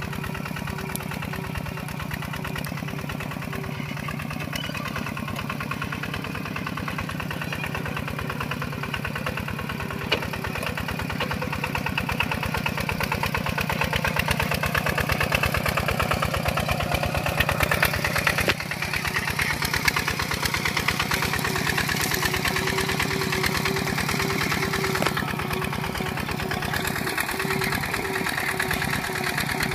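Kubota RT140 Plus single-cylinder diesel engine of a two-wheel walking tractor running steadily with a fast, even chug while it pulls a disc plough through the soil. It grows louder around the middle, with a brief dip about two-thirds of the way through.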